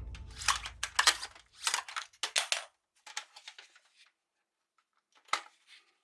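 Toy rifle being handled: a string of sharp plastic and metal clicks and clacks over the first three and a half seconds, then one more click about five seconds in. The tail of background music fades out during the first second.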